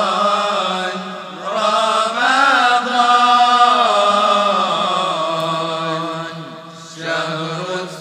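Voices chanting an Arabic devotional nazam, a melodic line over a steady held low note, with brief dips between phrases about a second in and near the end.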